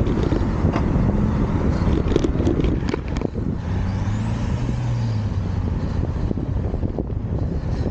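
Car traffic heard from a moving bicycle, with wind rumbling on the camera microphone and a car engine humming steadily about four to five seconds in. A few short clicks come about two to three seconds in.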